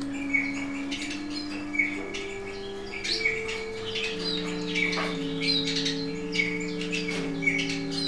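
Small pet finches chirping, short repeated calls one after another, over soft background music of slow held notes.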